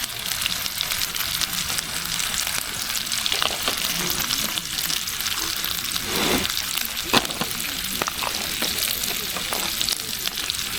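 Pork belly sizzling as it fries, a steady crackling hiss with a few sharp clicks.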